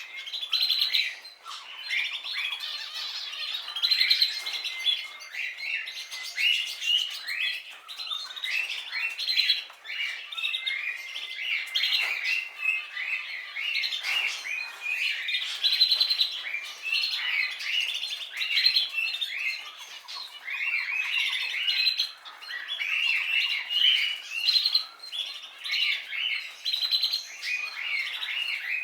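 Canary singing a long, unbroken song of rapid chirps and trills, broken by a few short held whistled notes.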